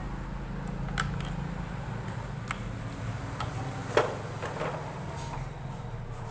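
Sharp clicks and knocks from parts and tools being handled during disassembly, the loudest knock about four seconds in, over a steady low hum.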